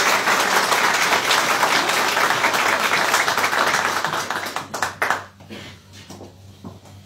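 Audience applauding, dense clapping that thins out about five seconds in and trails off into a few scattered claps.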